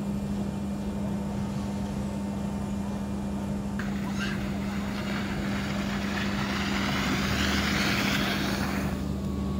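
Inflatable tube sliding down a rainbow dry-slide mat: a hissing rush that starts about four seconds in, grows louder as it comes down and stops suddenly near the end. A steady low machine hum runs underneath.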